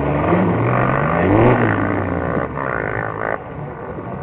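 Off-road vehicle's engine revving under load, its pitch climbing and falling in a couple of long sweeps, then a shorter rev near the middle.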